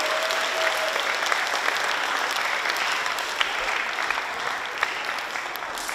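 An audience of schoolchildren applauding, a steady patter of many hands clapping that eases off slightly near the end.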